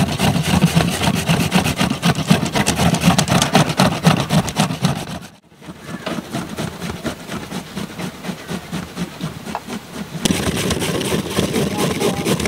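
Carrots being grated by hand on two stainless steel graters at once: fast, rhythmic rasping strokes, with a brief break about five seconds in.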